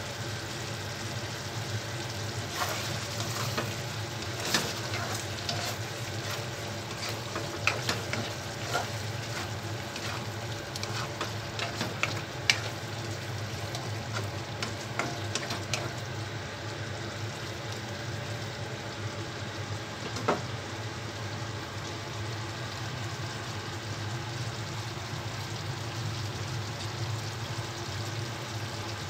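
Chicken and potato stew simmering in a stainless honeycomb wok, stirred with a wooden spatula that knocks and scrapes against the pan now and then, mostly in the first half. A steady low hum runs underneath.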